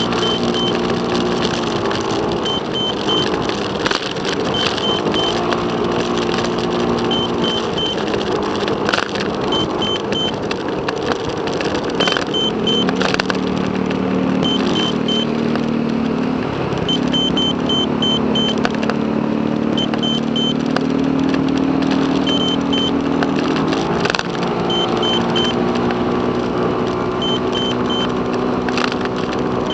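Car driving at night heard from inside the cabin: steady engine and road noise that changes pitch every few seconds as the car speeds up and slows.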